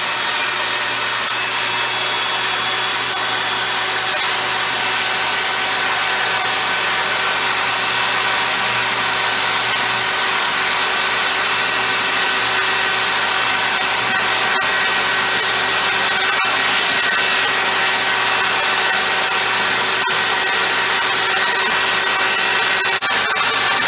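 SKIL 10-inch jobsite table saw running at full speed with a steady, loud whine as a board is fed through the blade.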